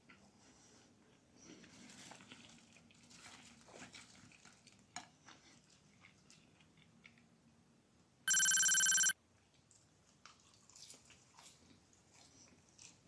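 A loud electronic ringing tone, trilling like a phone bell, sounds once for under a second about eight seconds in. Faint rustles and clicks run beneath it.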